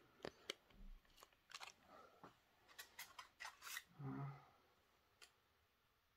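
Small clear plastic bag of model-railway detail parts handled in the fingers: faint, scattered crinkles and clicks of the plastic and the small parts inside over the first four seconds, then a soft low bump about four seconds in.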